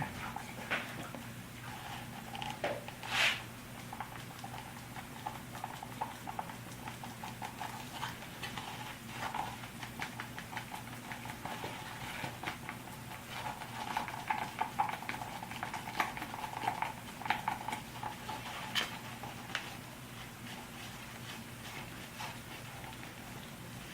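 A stick stirring epoxy thickened with colloidal silica in a mixing cup, making irregular scraping and tapping against the cup as the mix turns to a thick paste. A low steady hum runs underneath.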